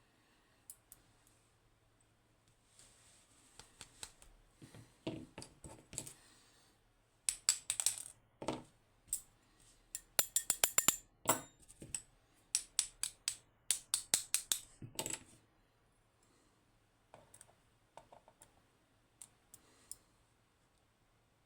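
Small metal lock pins from the gutted lock clinking and rattling against hard surfaces: a run of quick light metallic clicks with a bright ringing edge, scattered at first, coming thick and fast through the middle, then a few stray clicks near the end.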